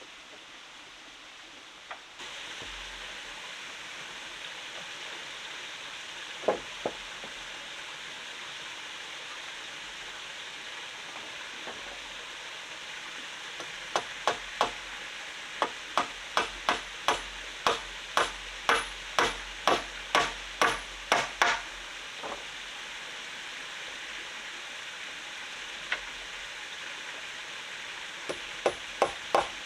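Runs of sharp knocks, a tool striking hard material about two times a second, over the steady rush of a stream.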